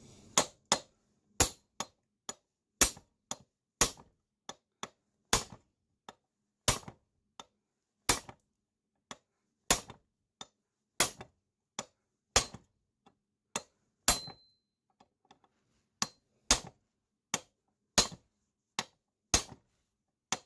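Hammer blows on metal, about two a second and unevenly spaced, each a sharp clang with a short ring: a seized, rusted-in steel part clamped in a bench vise being hammered loose.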